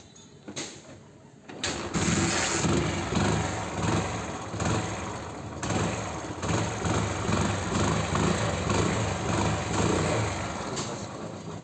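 Hero Splendor Plus's single-cylinder four-stroke engine starting up about two seconds in and then running, revved up and down repeatedly, just after its cylinder head has been rebuilt with a new O-ring.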